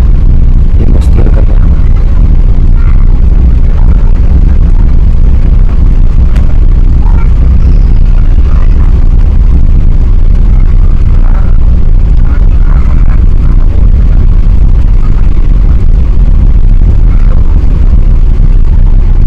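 Loud, steady low rumble of four-engined Airbus A380 engine and airflow noise heard inside the passenger cabin.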